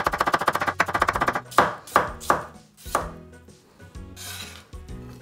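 Chef's knife slicing a cucumber thinly on a bamboo cutting board: a fast run of quick chops for about a second and a half, then a few slower single cuts, and a brief scrape near the end as the slices are gathered.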